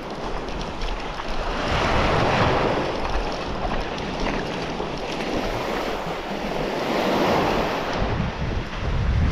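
Surf washing on a beach, swelling twice as waves break, with wind buffeting the microphone.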